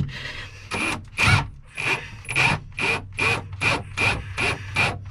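Ryobi cordless drill/driver driving a mounting screw in short, repeated bursts, about two a second, each with a brief whirring buzz.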